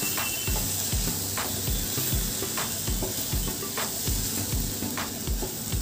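Wooden spatula stirring and scraping a softened onion, tomato and cashew mixture in a nonstick pan, the food sizzling, with strokes about once a second.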